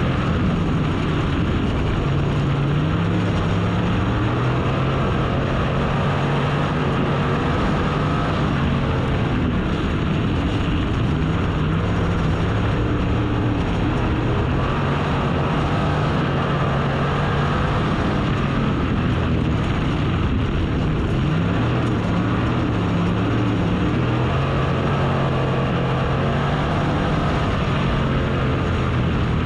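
Race car engine running hard, its pitch climbing and dropping every few seconds, over a steady loud rush of noise.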